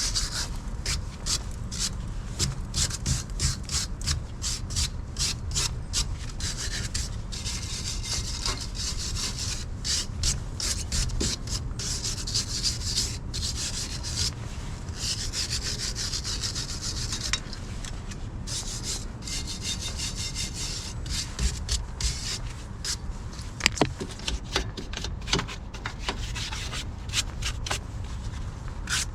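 Rapid back-and-forth abrasive rubbing strokes, many a second, with a few short pauses.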